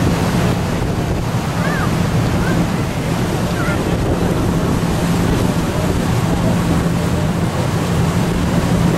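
Boat under way: a steady low engine drone under a rush of water from the wake, with wind buffeting the microphone.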